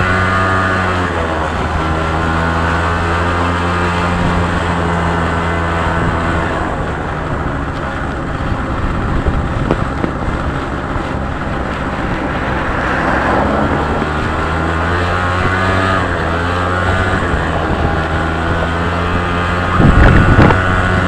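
Engine of the motor vehicle carrying the camera, running steadily along a road, its pitch slowly rising and falling with speed. About twenty seconds in, a few loud rushes of noise cut in over it.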